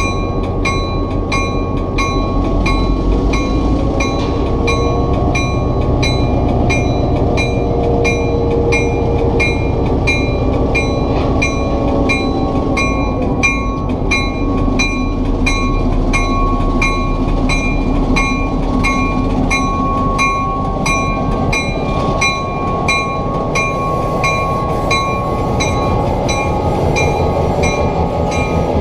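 An EMD GP7 diesel locomotive rolls slowly past at close range, its engine rumbling. A locomotive bell rings steadily, about two strikes a second.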